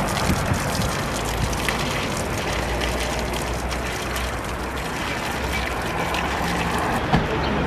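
Water from a hand pump's spout splashing steadily into a stone basin, over a steady low hum. A single sharp knock near the end.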